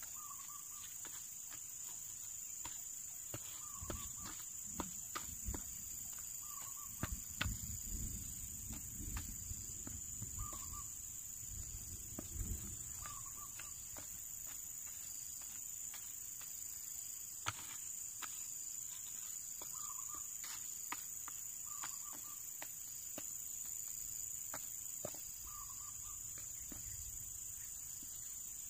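Steady high-pitched insect drone, with a bird's short call repeating every couple of seconds. Over it, a wooden stick scrapes and knocks through dry, clumpy soil, mostly in the first half.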